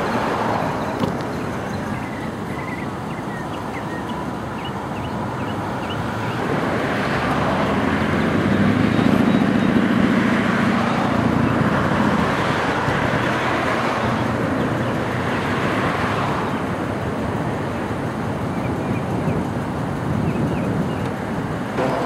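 Road traffic: the steady noise of cars on the street, swelling in the middle as a vehicle passes with a low engine hum, then easing off.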